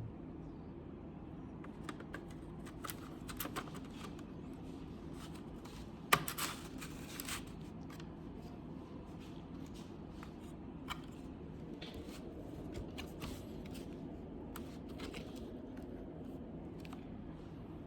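Scattered small clicks and scrapes of hands working on the parts of an all-in-one PC during a hard-disk swap, with a louder clatter about six seconds in, over a steady low hum.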